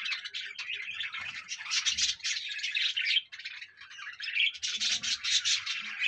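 Many small cage birds chirping and twittering in a dense, almost unbroken chatter, easing off briefly a little past the middle.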